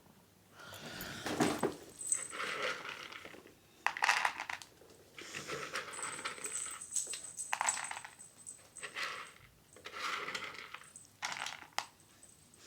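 A cat eating dry biscuits (kibble): crisp crunching in irregular bursts with short pauses between mouthfuls.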